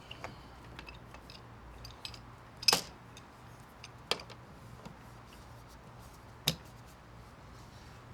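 Light metallic clicks and clinks of hand tools working on an outdoor faucet (spigot) being taken out, with three sharper clanks spread through.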